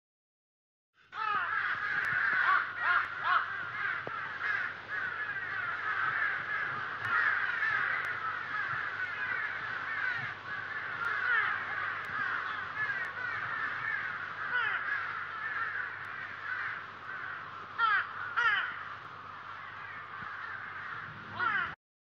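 A large flock of birds calling all at once: a dense, continuous chatter of many overlapping chirps. It starts about a second in and cuts off suddenly just before the end, over a faint steady low hum.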